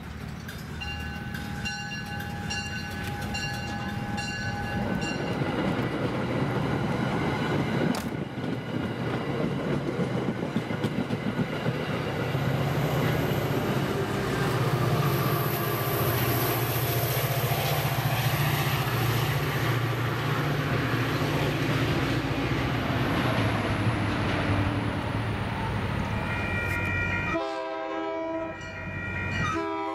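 MBTA diesel commuter train pulling out past the platform: the locomotive's bell ringing at about two strokes a second for the first few seconds, then the engine running and the coaches rumbling over the rails. Near the end an approaching train's multi-chime air horn blows.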